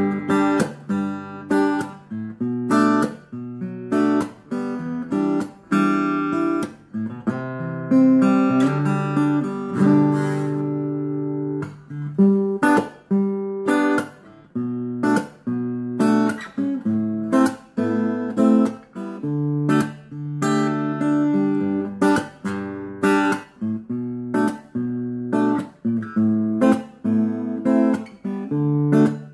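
Acoustic guitar played through an Aroma AG-15A 15-watt portable acoustic-guitar amplifier with a 5-inch speaker: a continuous melodic piece of plucked notes and strummed chords.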